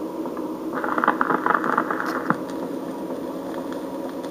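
Toy record player starting a vinyl record: about a second in comes a stretch of crackle and scratching as the needle runs in the lead-in groove, then steady hum and surface noise from the small speaker.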